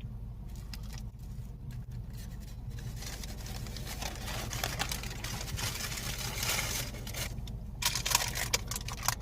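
Paper food wrapping rustling and crinkling as it is handled, with sharper crackles near the end, over a steady low background hum.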